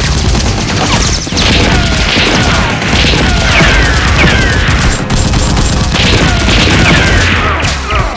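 Rapid, sustained gunfire sound effects, a dense run of shots with repeated falling whistles, over background music.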